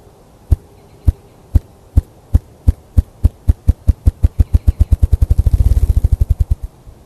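Ruffed grouse drumming, the male's wing-beat display: low thumps about two a second that speed up steadily into a rapid whir around five to six seconds in, then stop.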